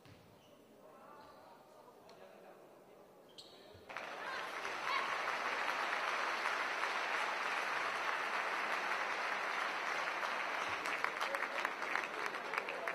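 Crowd applauding, starting suddenly about four seconds in after a few seconds of faint voices, with single claps standing out near the end.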